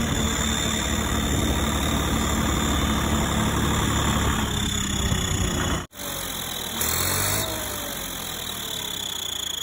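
Tractor diesel engine running with an aftermarket turbo whistle fitted, a steady high whistle held over the engine note. About six seconds in, the sound cuts out for an instant and comes back quieter, with a short hiss about a second later.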